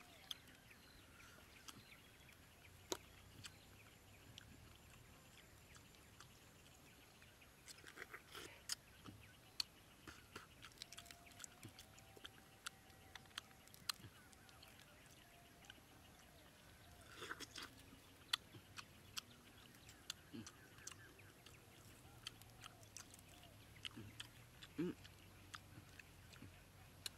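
Quiet, sparse soft clicks and crackles of food being handled, peeled and chewed by hand, with a few brief squeaks now and then, including a short rising one near the end.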